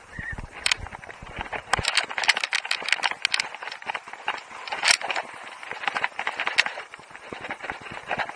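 Skis running over hard snow: a steady scraping, with a quick clatter of sharp clicks about two seconds in and a few single sharp knocks later.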